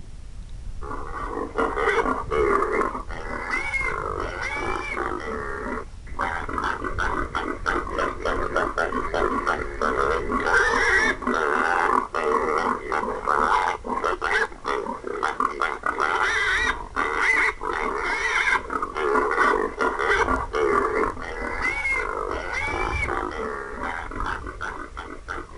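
Recorded hog squeals and grunts played loudly through an electronic game call, starting about a second in and carrying on with brief breaks. The sound is pinched to a narrow middle band, as a small speaker makes it.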